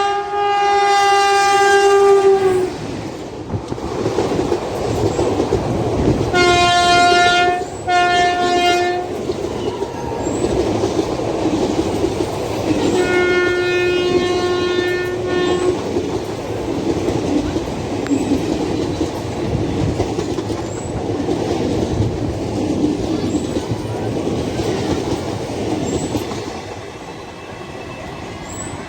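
WAP-4 electric locomotive's horn sounding as an express train runs through a halt: one long blast, then two short blasts about 6 s in, and another blast around 13 s. Then the coaches roll past with a steady rumble and clickety-clack of wheels over rail joints.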